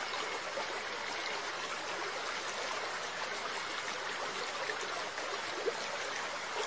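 Steady trickling of aquarium water, an even running-water noise that doesn't change.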